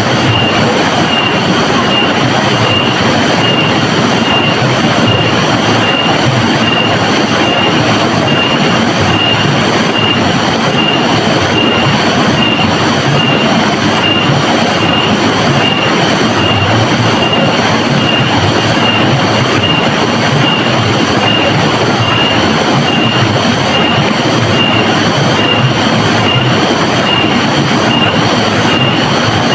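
Rushing river water, a loud steady roar. A thin high chirp pulses through it at an even pace, about once every two-thirds of a second.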